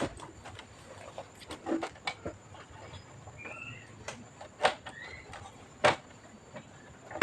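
Scattered light clicks and knocks of parts being handled, the two sharpest about four and a half and six seconds in, with two short high chirps between three and five seconds in.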